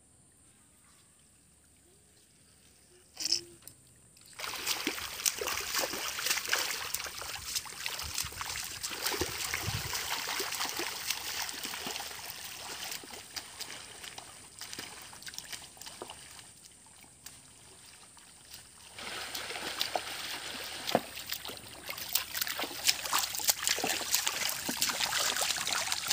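Muddy water sloshing and splashing with many small crackles as a wooden plank leveller is dragged through a flooded field and people wade in it. The first few seconds are near silent apart from one short knock; the splashing starts about four seconds in, eases off in the middle and then picks up again.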